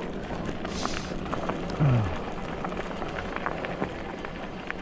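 Fat-tyre ebike rolling along a forest track, the tyres crackling and ticking over twigs and gravel under a faint low hum. A short grunt from the rider about two seconds in.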